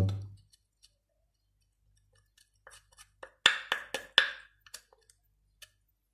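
A thin metal tool scraping and clicking inside a drilled hole in wood, digging out packed white filler: a cluster of short scrapes and clicks starting about two and a half seconds in, loudest around the middle.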